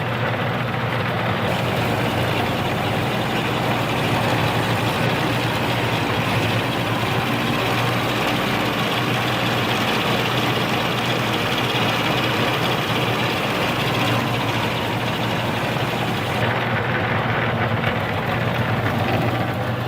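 Harbor Freight mini lathe, upgraded with a 1 hp AC motor and a mechanical variable-speed pulley drive, running steadily at its slowest spindle speed in low gear. It gives an even motor hum with the whir of the drive.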